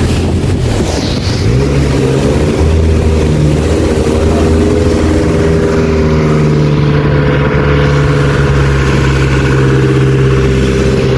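Motorhome engine running loud in the cab with its engine cover open while the van is driven through a flooded street. The engine note rises about a second and a half in, then holds steady.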